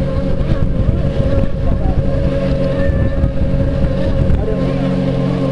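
Racing model powerboat and its chase boat running at speed, a steady engine drone with wind rumbling on the microphone.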